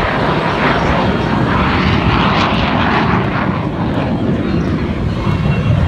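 F-16 fighter jet's engine noise as it flies a slow, nose-high high-alpha pass: a loud, steady rushing roar that swells a little in the middle.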